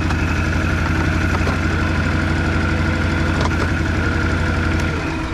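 Can-Am Outlander 570's V-twin engine idling steadily, then shut off about five seconds in.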